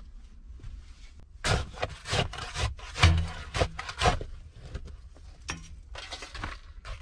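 Hand tool striking and breaking up a clay-and-brick stove, a run of irregular knocks with crumbling and scraping debris. The blows come thickest about a second and a half in, the loudest just after three seconds, then fainter knocks near the end.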